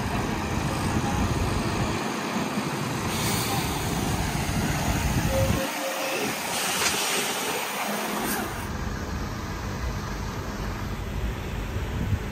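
Mercedes-Benz HGV's diesel engine running as the truck pulls a heavily loaded low-loader slowly past, with two spells of hissing about three and seven seconds in.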